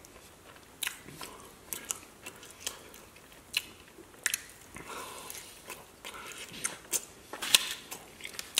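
Close-up eating sounds: biting and chewing saucy chicken wings, with irregular wet smacks and crunches and one sharper crunch near the end.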